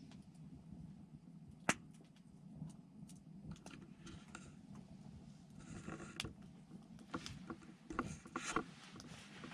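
Burning firewood crackling, with irregular sharp pops and clicks, one louder snap about two seconds in and clusters of crackles in the second half.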